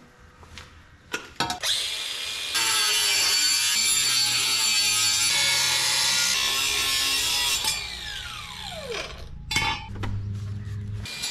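Cordless power saw cutting through stainless steel exhaust tubing, a loud, hissing cut with a high ringing whine, running for about five seconds. The trigger is then released and the motor winds down in a falling whine, followed by a couple of knocks.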